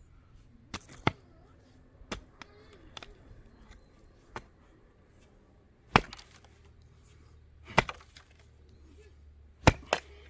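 A series of sharp struck blows, single or in quick pairs, roughly every one to two seconds: a hand tool striking something hard.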